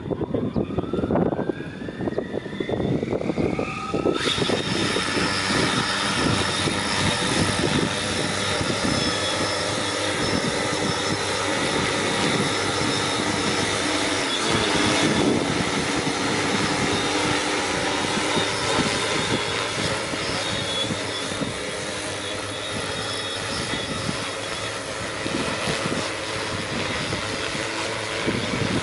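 Multirotor agricultural spraying drone: its electric motors whine, rising in pitch over the first four seconds, then its propellers break into a loud, steady rushing drone that carries on as it flies.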